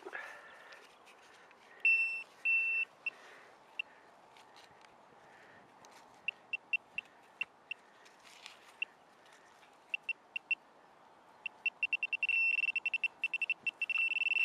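Handheld metal-detecting pinpointer probed in a dig hole, giving short single-pitch beeps now and then, then beeping faster and faster over the last few seconds until it is almost one continuous tone as its tip closes on the buried metal target.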